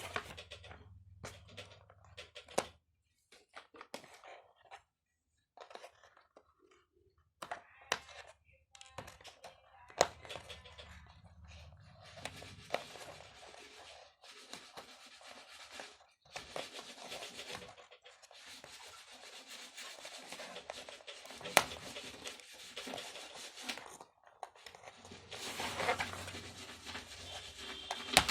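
Doll packaging being opened by hand: stretches of tearing and crinkling broken by pauses, with scattered sharp clicks and knocks.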